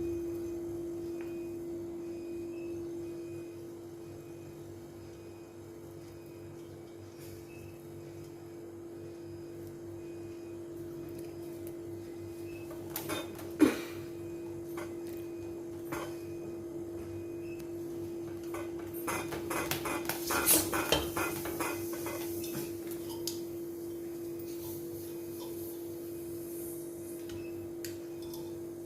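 A steady electric hum runs throughout, with scattered metallic clinks and taps: one sharp clink about 14 seconds in and a quick flurry of clinking a few seconds later.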